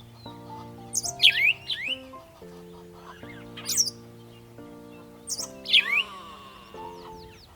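Caged park birds calling in sharp chirps and squawks that sweep down in pitch, in about three loud bursts, over soft background music of held notes.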